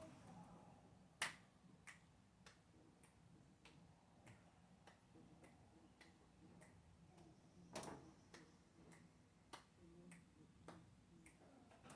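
Near silence with faint, regular ticking, a little under two clicks a second, and a slightly louder click about a second in and another about eight seconds in.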